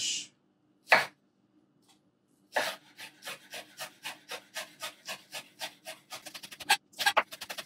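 Kitchen knife chopping scallions on a wooden cutting board. There is one knock about a second in, then a steady run of chops at about three a second that speeds up near the end.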